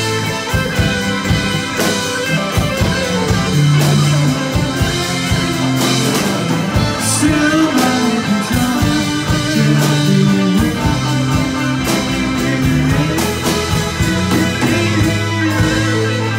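A live band playing a rock song, with pitched instruments and a steady drum beat.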